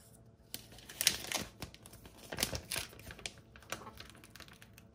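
Thin clear plastic protective film being peeled off a new smartphone, crinkling in short, irregular rustles with quiet gaps between.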